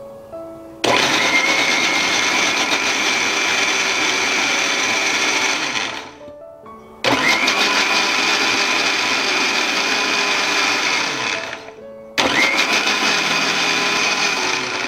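Electric mixer grinder blending mango pieces in its jar, run three times. Each run starts abruptly with a rising whine, holds steady for a few seconds, then winds down. The last run is the shortest.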